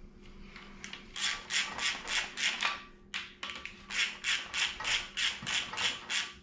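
Ratchet wrench clicking in quick rasping strokes, about three a second with a short pause partway through, as bearing cap bolts are run down on an engine block during a bearing replacement.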